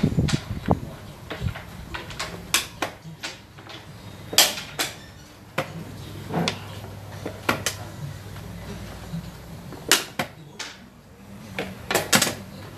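Xiangqi pieces clacked down and slid on a wooden board, with presses of the chess clock's buttons: a scattered run of sharp, irregular clicks and knocks.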